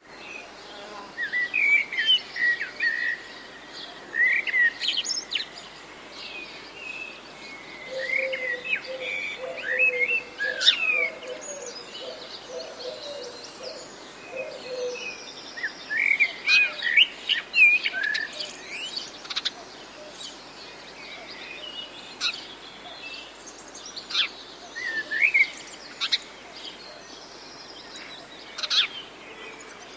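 Birds chirping and singing in short, scattered runs of high calls, with a lower repeated call from about eight to fifteen seconds in, over a faint steady outdoor background.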